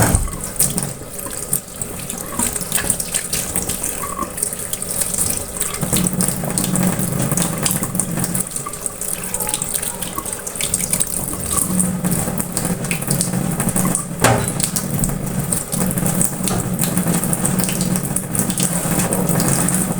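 Tap water running into a sink while onion, coriander leaves and eggs are rinsed under it, with occasional light knocks and clicks of handling.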